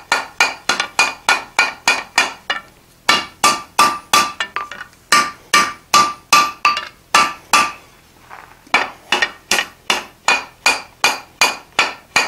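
Blacksmith's hand hammer striking a bar at welding heat on the anvil in quick light taps, about three to four a second, in three runs with two short pauses; many blows leave a brief metallic ring. The taps are forge-welding a cold shut in the bar's bent corner.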